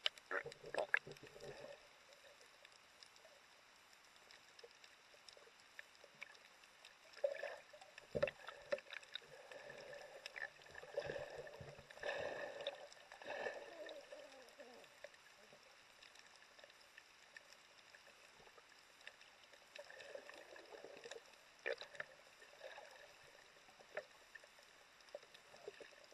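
Muffled underwater water sounds heard through an action camera's waterproof housing: a splash as it goes under near the start, then quiet stretches broken by irregular bursts of swishing, bubbling and clicks as swimmers move and dive nearby.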